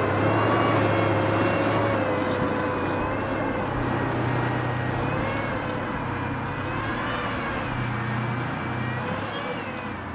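WZT-2 armoured recovery vehicle on its T-55-based tracked chassis driving off, its V12 diesel engine running with a steady low drone and a wavering, high-pitched whine over it. The sound slowly fades as the vehicle moves away.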